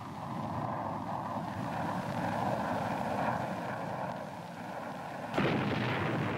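Jet aircraft engine noise, a steady rushing with a faint whine, then a sudden bomb explosion about five seconds in whose rumble carries on.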